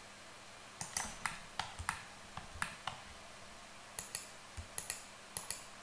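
Computer keyboard keys and mouse buttons clicking: a run of irregular, sharp clicks in small clusters, starting about a second in, as shortcut keys are pressed and parts are selected.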